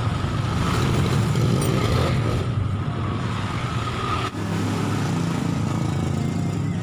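An engine running steadily, with a shift in its note about four seconds in.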